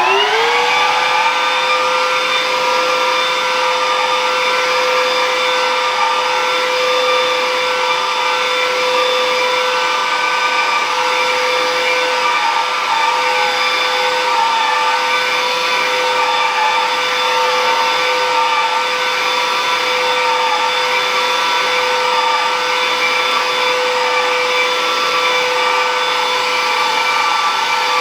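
Stick vacuum cleaner running: a motor whine that settles at full speed just as it begins, then holds steady over a rushing hiss of air.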